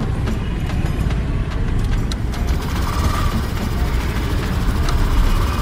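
Motor scooter engine idling with a steady low rumble.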